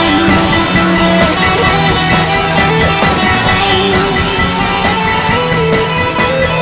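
Loud rock band recording: distorted electric guitar over drums keeping a steady beat, with held notes sustained above.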